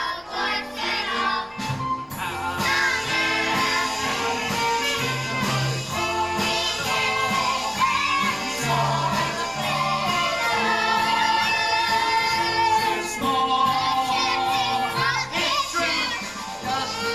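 Instrumental break of a show tune, the accompaniment playing a melody over a moving bass line with a steady beat.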